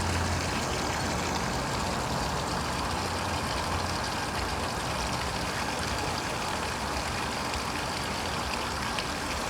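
Steady rush of running water from the flushing supply hooked to the outboard, with a low steady hum underneath.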